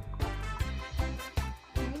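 Upbeat background music with a steady beat, bass and plucked or keyed instrument notes.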